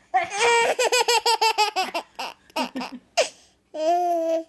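Baby laughing: a quick run of high-pitched giggles, a few short laughs after, then one held high squeal near the end.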